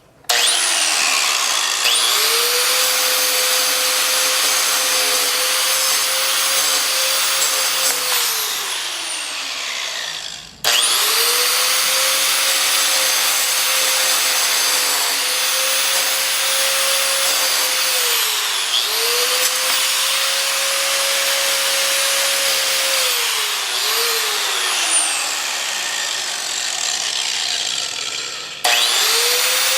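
Angle grinder grinding into an iPhone 6: a high motor whine over a grinding hiss. It starts up, winds down and stops about ten seconds in, then restarts at once. Its pitch dips briefly twice before it winds down again, and it starts up once more near the end.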